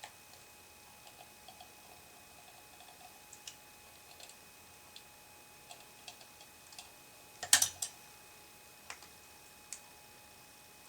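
Small, light clicks and taps of tools and fingers handling a tiny plastic earbud speaker housing, scattered irregularly, with a louder cluster of clicks about seven and a half seconds in.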